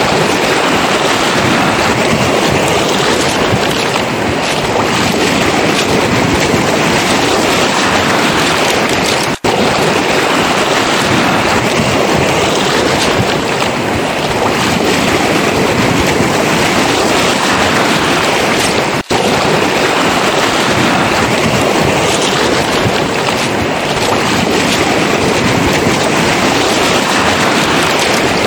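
Surf washing over a pebble beach as a loud, continuous rush, with wind on the microphone. The sound cuts out for an instant twice.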